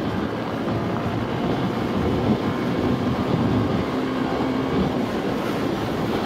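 Motorcycle engine running steadily at road speed, mixed with the rush of riding wind.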